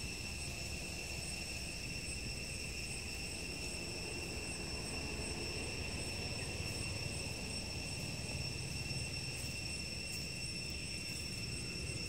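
Steady high-pitched insect chorus, one unbroken shrill tone with fainter higher overtones, over a low steady rumble.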